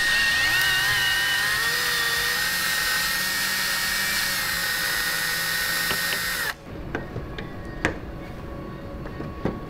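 Cordless drill turning a socket on an extension, backing out a headlight mounting bolt: the motor whine rises as it spins up, runs steadily for about six seconds, then stops suddenly. A few light clicks follow as the headlight is handled.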